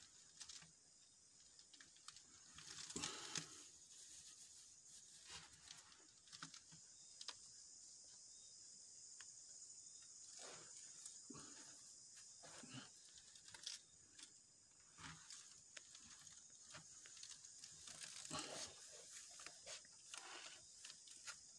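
Near silence with faint, scattered rustling and crackling of dry coconut coir fibre being spread and pressed down by hand over wire mesh and gravel.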